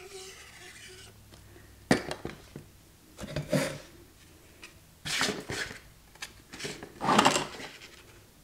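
Paper and cardstock being handled on a craft table: a sharp tap about two seconds in, then three short spells of rustling and sliding paper as the glued pocket is laid into the notebook.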